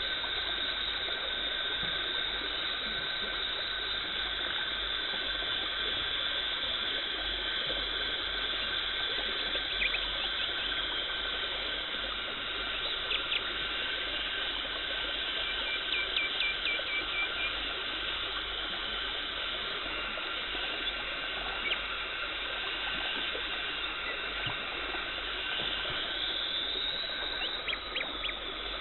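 Dental suction and water spray hissing steadily during a teeth cleaning, with a steady high whine over it and a few light clicks.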